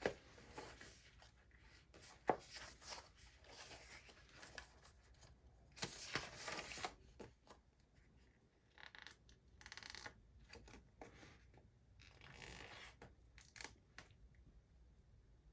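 Faint handling of a transparent sticker sheet and paper: soft rustles and crinkles with a few light taps as a sticker is peeled from its backing and pressed onto a page.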